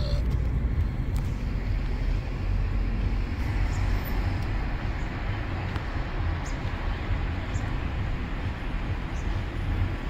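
Car cabin noise while driving at low speed: a steady low rumble of the engine and tyres on the road.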